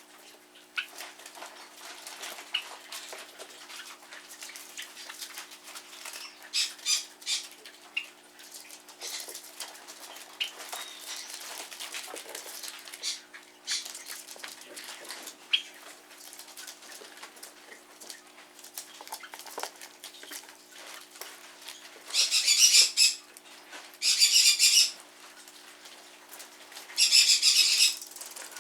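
Small pet birds (a Java sparrow and a Pacific parrotlet) scuffling in a cage, with light scratching and clicks, then three loud bursts of wing flapping about a second each near the end.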